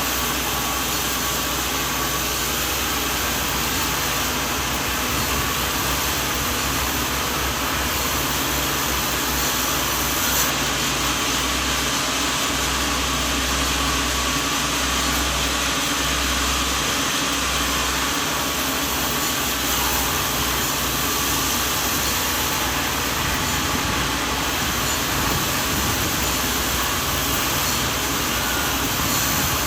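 Sawmill machinery running steadily, a continuous mechanical drone with a low hum.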